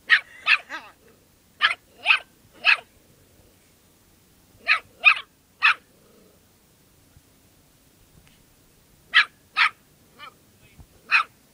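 Small dog barking in quick clusters of two or three sharp, high barks, with pauses of a second or more between clusters: barking at a lizard it has cornered.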